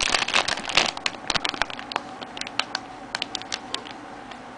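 Plastic model-kit parts runners being handled, with crinkling and quick light clicks, dense for the first second or two and then scattered.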